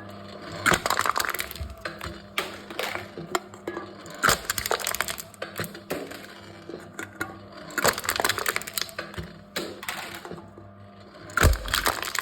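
Aluminium cans being crushed in a can-crushing machine: bouts of crunching and crackling metal, loudest about a second in, around four and eight seconds in and near the end, over a steady low hum.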